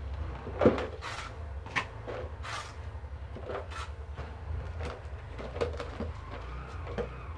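A small hand trowel digging and scraping soil in a small plastic flower pot, loosening a rue plant so it can be lifted out with its roots. It makes a series of short scrapes and knocks against the pot, the sharpest about a second in.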